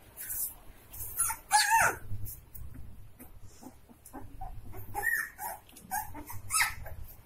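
Saint Bernard puppies yipping and barking in short high calls, the loudest a little over a second in and more near the end, with short sharp ticks in between.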